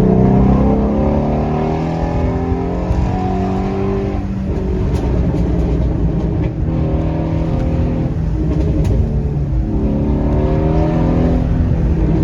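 Ford Shelby GT350's 5.2-litre flat-plane-crank V8 running under acceleration, its pitch climbing and dropping back a couple of times.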